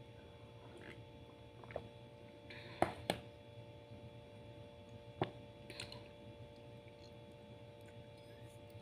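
A few sharp clicks of a plastic fork against a ceramic plate while eating, the loudest two close together about three seconds in and another about two seconds later, over a steady electrical hum.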